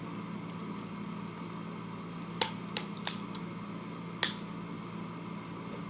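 Eating sounds: four sharp clicks and taps in quick succession near the middle, over a steady low background hum.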